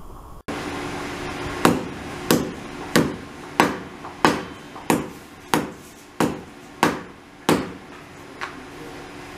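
Riflescope being struck against an iron stand in a shock-resistance test: about ten sharp metallic knocks at a steady pace of roughly one and a half a second, each ringing briefly, then one fainter knock near the end.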